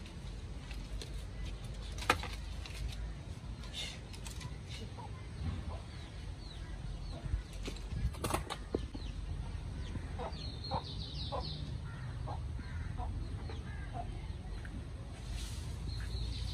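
Chickens clucking and birds chirping in bursts over a steady low background, with a few sharp knocks, the loudest about two seconds in and about eight seconds in.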